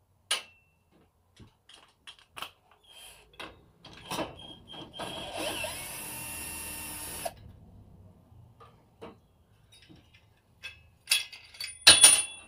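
Cordless drill spinning a socket on the crankshaft nut of a small two-stroke engine for about two seconds, starting about five seconds in. Around it come scattered clicks and knocks of tools and parts being handled on a wooden bench, and near the end a loud clatter as the tools are set down.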